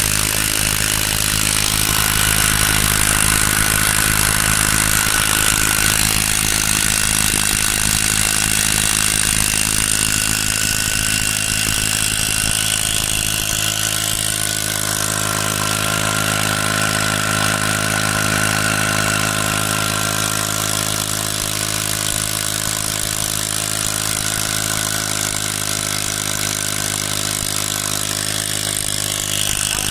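Small brush-cutter engine rigged as a boat motor, running steadily under way; its pitch shifts slightly about halfway through.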